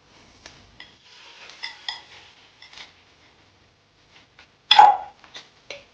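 Tableware clinking and scraping, with short ringing tones like a bowl being struck, then one loud clatter of dishes near the end and a few light knocks.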